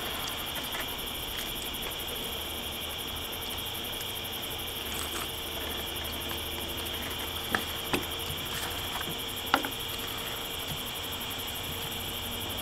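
Steady chirring of night insects such as crickets, with three short clicks in the second half.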